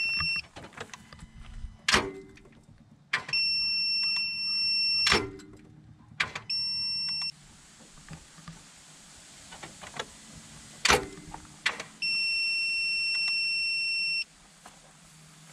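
Steady high-pitched electronic beep sounding in stretches of up to about two seconds, four times, broken by three sharp clunks about two, five and eleven seconds in.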